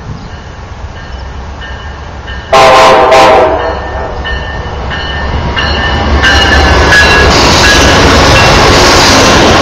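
Passenger train hauled by Amtrak Genesis diesel locomotives passing close by: a short, loud horn blast about two and a half seconds in, then the locomotives' engine rumble and the clatter of wheels on the rails, growing loud as the train goes by.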